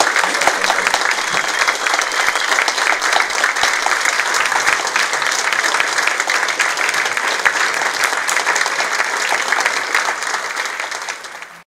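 Audience applauding steadily with dense clapping, fading out near the end and then cutting off.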